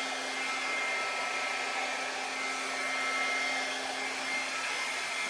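Small handheld hair dryer running steadily: a constant rush of air with a faint steady whine, blowing out wet poured paint.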